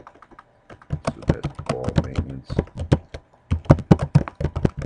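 Typing on a computer keyboard: quick runs of key clicks, with a short pause about half a second in.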